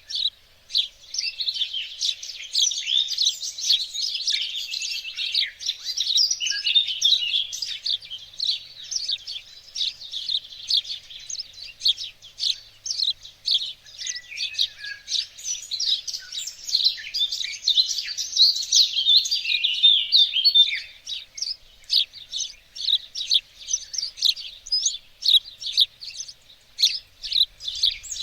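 Many small songbirds chirping and singing at once: a dense, unbroken chorus of quick high chirps and short trills.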